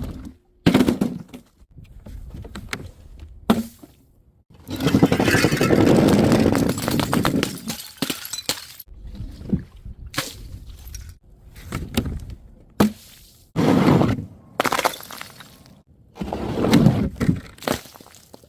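A series of separate smashes and crunches as glass bottles and other brittle things are broken and crushed. Each starts with a sudden crash and trails off in crackling. A longer stretch of crunching runs from about four and a half to nine seconds in.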